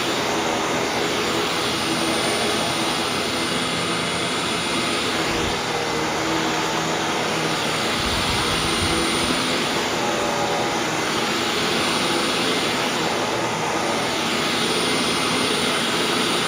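Hoover WindTunnel WidePath bagged upright vacuum running steadily on carpet, its motor whine and airflow rush constant, with a brief low rumble about eight seconds in as the head passes over the rug.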